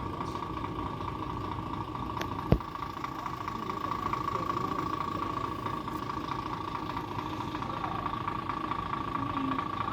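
Gravel truck's diesel engine idling steadily, with a constant high-pitched whine over it. One sharp knock about two and a half seconds in.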